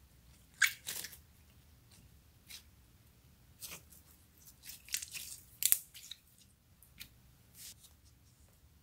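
Clear slime packed with plastic beads being stretched and squeezed by hand, giving a series of short crackling pops and squelches, the loudest about half a second in and again about five and a half seconds in.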